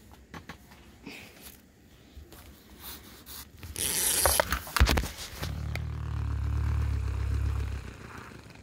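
Rustling and scraping as a glittery plush toy is picked up and handled, with a few sharp clicks about five seconds in, followed by a low steady hum lasting about two and a half seconds.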